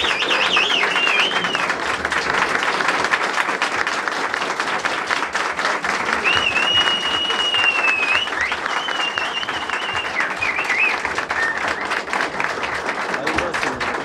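Crowd applauding steadily, with high wavering whistles rising over the clapping a few times.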